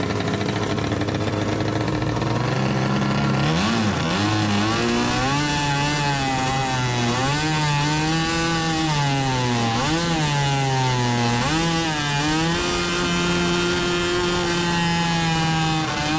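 Two-stroke twin engine running, at first at a low steady speed. From about four seconds in it is revved up and down several times, then held at a steady higher speed from about twelve seconds on.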